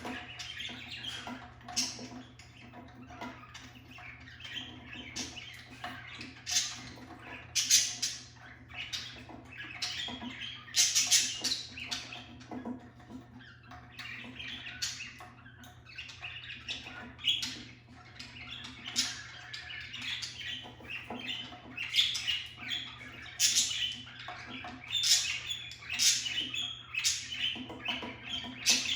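Several budgerigars chirping and squawking in many short, irregular calls.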